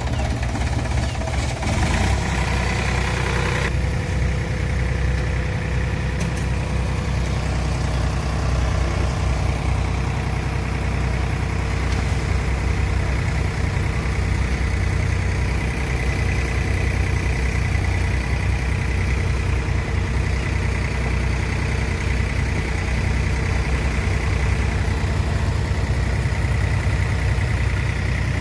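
An engine running steadily at idle, a low hum with a faint steady whine above it and a brief rush of noise about two seconds in.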